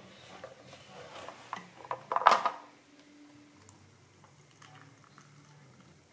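Kitchenware clinks and knocks from a metal kettle and a ceramic cup, the loudest one sharp knock about two seconds in. After that it goes quiet, and near the end hot water starts to pour from the kettle into the cup.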